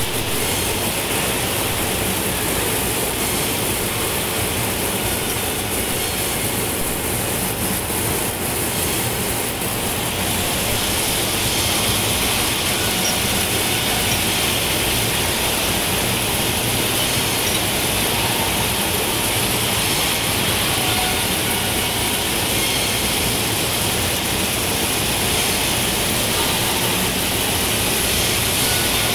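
Induction tube-welding mill running steadily: a continuous mechanical din from the rolls and drive, mixed with the hiss of coolant water spraying onto the hot weld seam of the moving steel tube.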